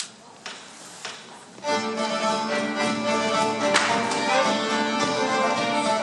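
A few soft clicks, then after a second or two a small Persian traditional ensemble starts playing: a bowed string instrument holds long, steady notes over the other instruments, with one sharp tap near the middle.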